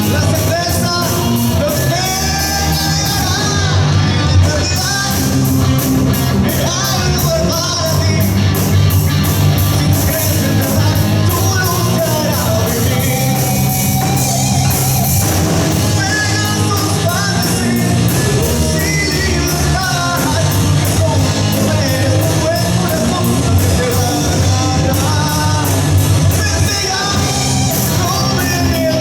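Live rock band playing with a singer: electric guitar, bass and a drum kit with dense, steady cymbal hits under a male lead vocal.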